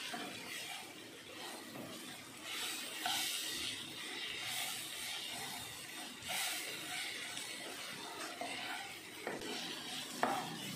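Wooden spatula stirring and scraping roasted vermicelli and masala around a nonstick pan, a dry rustle in strokes every second or two. A couple of light knocks come near the end.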